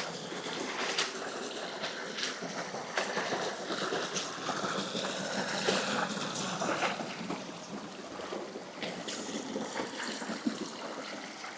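Steady rush of flowing river water, with scattered irregular knocks and crunches over it.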